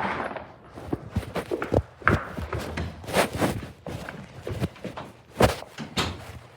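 Footsteps of a person walking: irregular thuds and scuffs, a few louder ones about two, three and five and a half seconds in.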